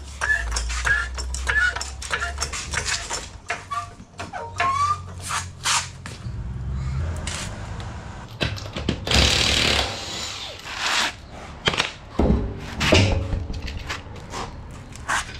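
Hydraulic floor jack being worked under an SUV's front end: a run of irregular metal clicks, knocks and short squeaks as the vehicle is raised, with a brief rushing noise a little past the middle.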